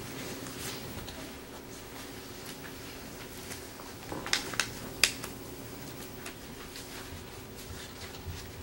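Quiet courtroom room tone with a steady low electrical hum, broken by three sharp clicks or taps about four to five seconds in.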